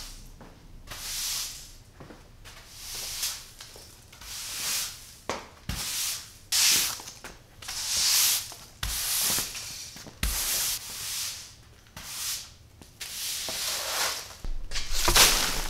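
A broom sweeping leaves and grit across a bare concrete floor: about a dozen brushy swishes, one after another, with a few dull knocks. Near the end, a straw broom sweeps debris into a plastic dustpan.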